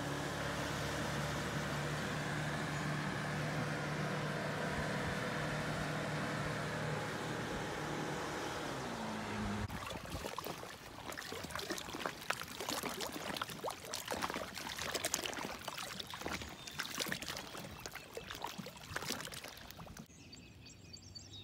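Motorboat engine running at speed across a lake, a steady drone whose pitch drops slightly near nine seconds in as it goes past. Then, after a cut, water trickling and splashing where a small inlet runs into the lake.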